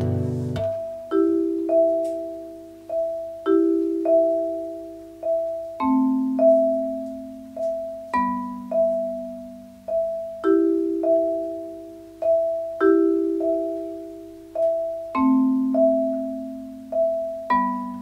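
Vibraphone playing an instrumental passage: one high note struck again and again, a little under twice a second, over lower two-note chords that change every couple of seconds. Each note rings on and fades.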